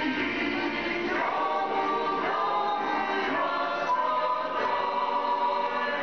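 A choir singing slow held chords that change about once a second, heard as background music.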